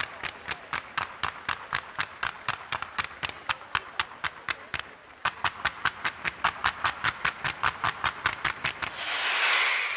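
A fireworks battery firing a fan of white shots in quick succession: an even string of sharp reports, about five a second. Near the end a loud hissing crackle swells and fades.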